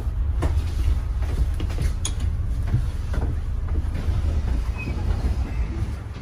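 Interior of a moving double-decker bus: a steady low engine and road rumble with scattered knocks and rattles from the body, growing quieter near the end as the bus slows towards a stop.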